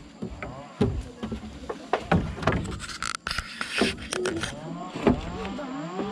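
Acacia logs being thrown by hand onto a log pile on a truck bed, giving a series of sharp wood-on-wood knocks, several in a few seconds.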